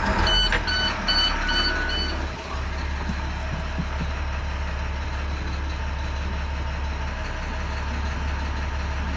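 Navistar MaxxForce DT 466 diesel engine, warmed up, just started and idling steadily in the school bus, with a run of five short electronic beeps about two a second in the first two seconds.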